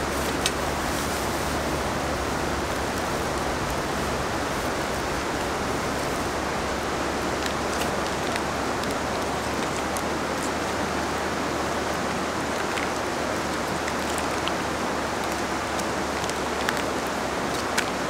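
A river rushing steadily: an even, unbroken hiss of flowing water. A few faint light clicks sit on top of it.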